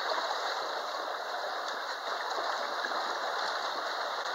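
Pool water sloshing and lapping as a swimmer strokes down the lane, heard as a steady rushing water noise without distinct splashes.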